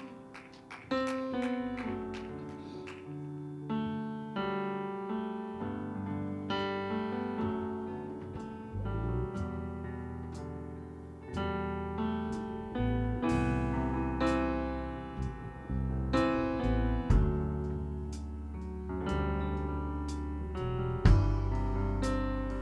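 Worship-band instrumental led by an electric piano playing sustained chords, with a deep bass coming in about nine seconds in and sharp percussive strikes over it: the keyed-in introduction to the next song, in G.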